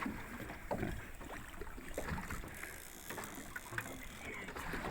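Background sound aboard a fishing boat: a low steady rumble with scattered small knocks and clicks.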